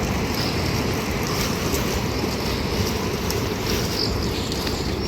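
Heavy rain falling steadily: a loud, even rush of noise with no break.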